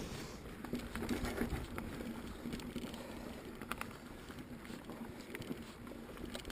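Pivot Switchblade mountain bike on 27.5 plus tyres being ridden on a dirt trail: steady tyre rumble and a faint hum, with scattered clicks and rattles from the bike.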